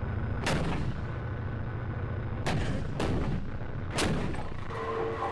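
Leopard 1 tank's 105 mm main gun firing, among four sharp gun reports in a row, the first and the last the loudest, over a steady low rumble.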